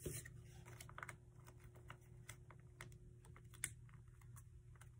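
Origami paper being folded and creased by hand: soft, irregular crinkles and small clicks, with one sharper click about three and a half seconds in.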